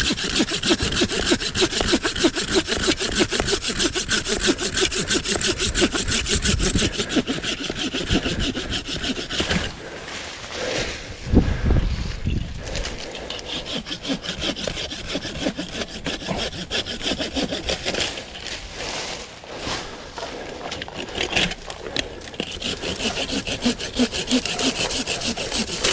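A handsaw cutting through woody shrub stems with fast back-and-forth strokes. It stops for a few seconds in the middle, where there is a single low thump, then starts sawing again.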